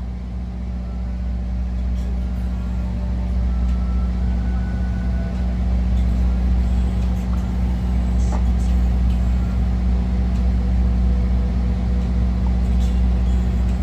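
A large engine running with a steady low drone, growing gradually louder over the first several seconds and then holding.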